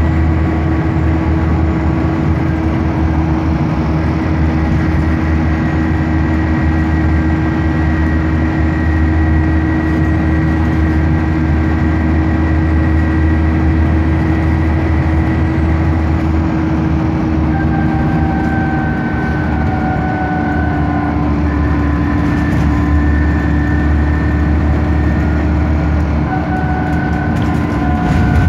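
Diesel engine of an ex-Stagecoach London bus running steadily, heard from on board as a constant low drone. In the second half, faint high whining tones come and go over it.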